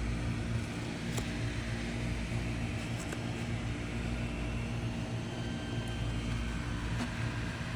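Steady low mechanical hum of a running motor or engine, with a few faint ticks.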